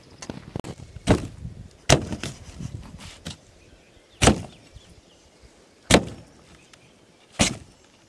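A cleaver chopping a cucumber into thick rounds on a wooden cutting board: five sharp chops at uneven intervals, each blade hitting the board with a knock.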